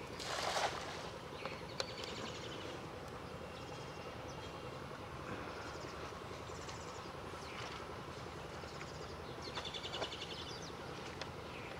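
A cast net lands on the pond with a short splash about half a second in. After it, birds chirp and trill again and again.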